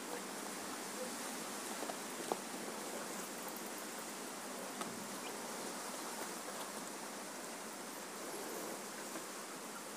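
Faint steady hiss of outdoor background noise, with a few soft clicks about two and five seconds in.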